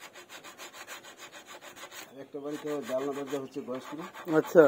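Hand tool scraping across teak wood in quick, even strokes, several a second. From about halfway a wavering pitched hum joins in, rising sharply and loudest near the end.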